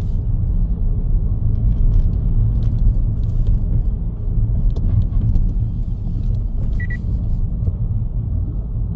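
Car driving on the road: a steady low rumble of engine and tyre noise. A short high beep sounds about seven seconds in.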